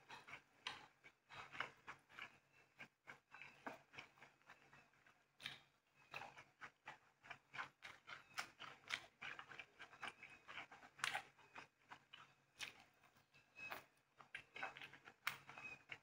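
Quiet, irregular clicks and rustles of eating by hand: grilled meat being pulled from bamboo skewers and fingers pinching sticky rice, with light taps of skewers and cutlery on china plates.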